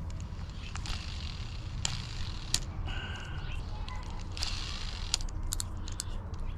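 A baitcasting fishing reel handled in the hands: scattered sharp clicks and short rasping stretches as its handle and parts are worked, with a steady low hum behind.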